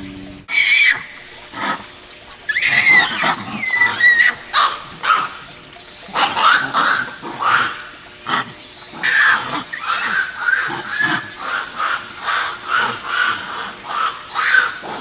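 Japanese macaques screaming in a fight: many shrill, loud calls, some rising and falling in pitch, then a run of short screams about two a second in the second half.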